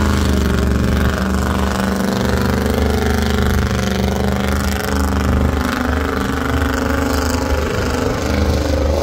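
Pickup-based tow truck's engine revving in the sand arena, a steady note that wavers a little in pitch as the revs rise and fall.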